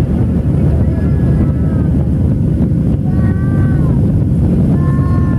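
Cabin noise of a Boeing 737-700 during the takeoff roll and lift-off: its CFM56 turbofan engines at takeoff thrust, heard from a seat over the wing as a loud, steady, deep rumble. Faint high wavering tones come and go a few times above it.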